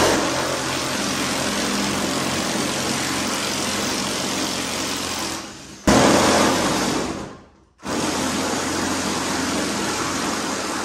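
A handheld power tool run in long bursts on the truck's bench-seat mounting bolts, a steady noisy whir. It winds down about halfway through, starts again sharply and winds down briefly once more shortly after.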